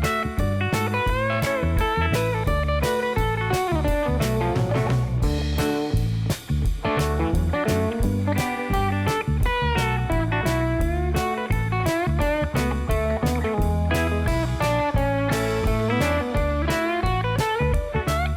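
Background music: electric guitar playing a bluesy melody over a steady beat.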